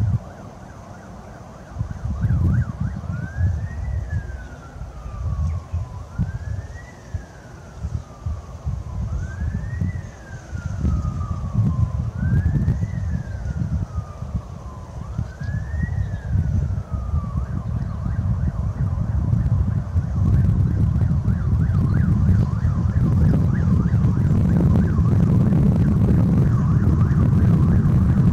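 A siren wailing in five slow rise-and-fall sweeps of about three seconds each, starting a few seconds in and stopping just past halfway. Heavy wind buffets the microphone throughout and grows stronger in the last third.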